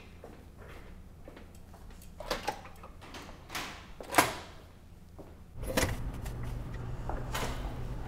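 Footsteps and scattered small clicks, with a sharp latch click about four seconds in. From about five and a half seconds a steady low hum sets in, and a heavy door is pushed open near the end.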